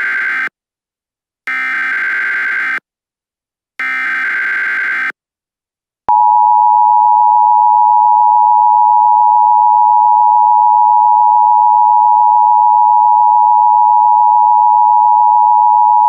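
Emergency Alert System broadcast signal: the end of one burst of SAME header data tones and two more bursts, each about a second and a quarter long with short silences between. After a pause, the steady two-tone attention signal sounds for about ten seconds, announcing that an emergency alert message follows.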